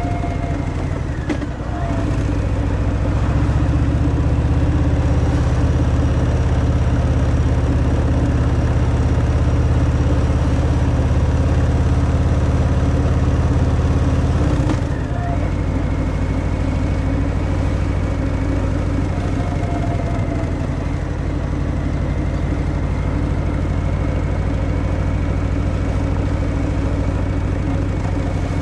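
Harley-Davidson Fat Boy's Milwaukee-Eight 114 V-twin running under way on its stock exhaust. The engine note dips briefly about a second and a half in, then settles to a slightly lower, quieter note about halfway through.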